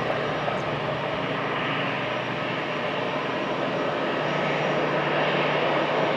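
Airliner engines running with a steady rushing noise, growing slightly louder in the last couple of seconds.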